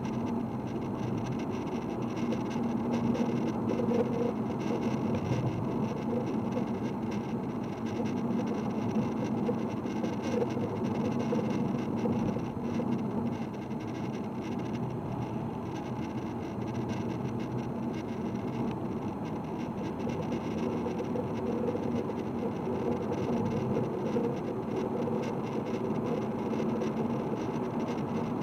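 A diesel car being driven: steady engine and road noise that swells and eases slightly over a few seconds.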